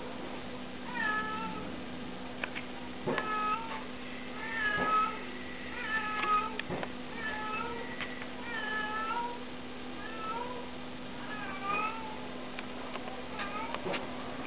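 A mother cat meowing over and over, about ten calls, each a second or so apart with a bending pitch: she is calling for her missing kittens.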